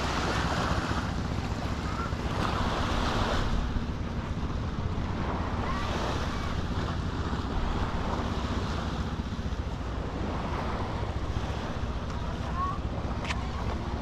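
Small waves washing onto a sandy beach, the hiss swelling and falling away every few seconds, with wind buffeting the microphone in a steady low rumble.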